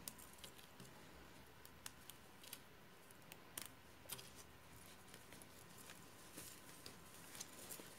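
Near silence with a dozen or so faint, scattered clicks and light handling rustle, as pins are taken out of a freshly joined crocheted bag.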